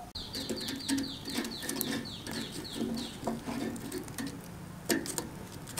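A bird calling in a quick, even run of short falling chirps, about four a second, for about three seconds. A single sharp knock comes near the end.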